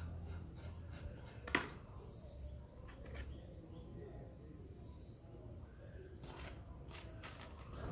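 Faint short bird chirps, repeating every two to three seconds, with one sharp click about a second and a half in.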